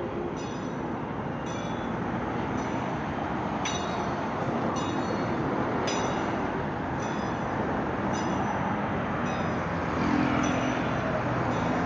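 City street traffic, a steady noise of passing vehicles with an engine coming through louder near the end. A short high chirp repeats about once a second.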